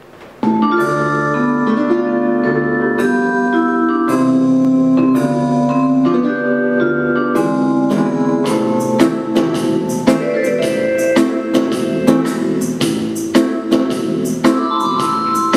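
Instrumental introduction of a pre-recorded backing track: held, chiming keyboard chords, joined about eight seconds in by a steady percussion beat of roughly two strokes a second.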